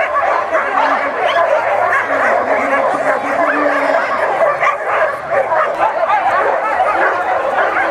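Many dogs barking and yelping at once in a dense, continuous chorus: canicross dogs in harness, worked up and eager to run before a mass start.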